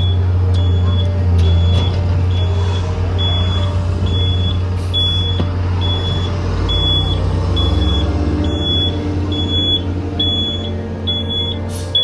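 The engine of a heavy harvest vehicle runs steadily with a deep hum, while a high-pitched warning beeper sounds evenly, nearly twice a second.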